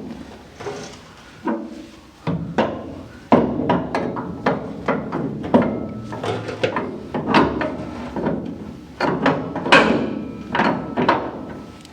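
Irregular metal knocks and clunks, a dozen or more, some with a short ring, as a steering shaft with universal joints is worked through the firewall and into place in the car.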